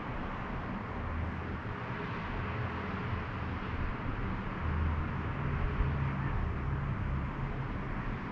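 Outdoor ambience of distant road traffic: a steady low hum that grows louder for a couple of seconds in the second half, over a steady hiss of light wind.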